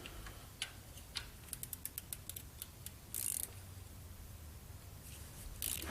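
Light clicking from small metal parts or tools being handled: a quick run of about a dozen sharp ticks, then a short rasp about three seconds in and another near the end.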